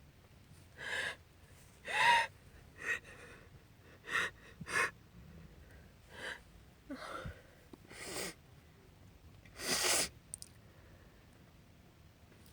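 A woman sniffling and gasping for breath during a sneezing fit: a string of about nine short, sharp sniffs and breaths. The loudest come about two seconds in and about ten seconds in.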